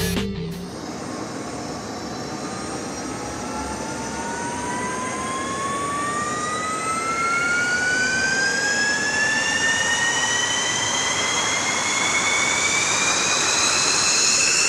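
Jet engine spooling up: a turbine whine with several overtones rises steadily in pitch over a rushing noise and slowly grows louder.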